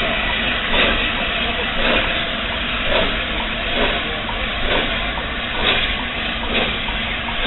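LNER A4 Pacific three-cylinder steam locomotive pulling away slowly with a heavy train: a steady hiss of steam with exhaust beats about once a second, coming slightly quicker toward the end.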